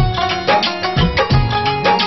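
Instrumental interlude of a Punjabi devotional song: drums keep a steady beat with deep, bending bass strokes, under a held melody line.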